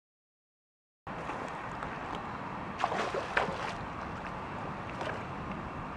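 A twaite shad splashing at the surface of a calm river, a few quick splashes about three seconds in and a weaker one near the end, over steady wind noise on the microphone. The first second is silent.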